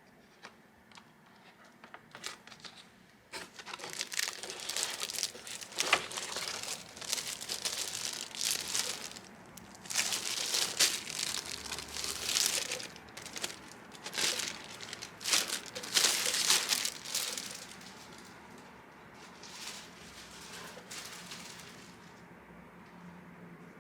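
Crinkling and rustling of a crinkly wrapper or bag being handled, in irregular bursts that are loudest between about 4 and 18 seconds in, then fading to softer handling.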